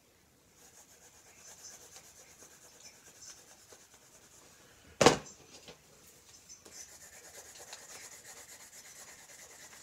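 Scratchy rubbing of a drawing tool on the paper of a small spiral notebook, in two stretches of drawing strokes. A single sharp knock about halfway through, louder than the drawing.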